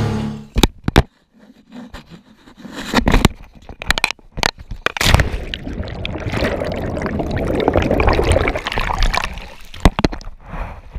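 Diver's camera plunging into the sea: a few sharp knocks as it goes in, then muffled underwater water noise. A dense churning rush of air bubbles swells for several seconds, then dies down with a few more knocks near the end.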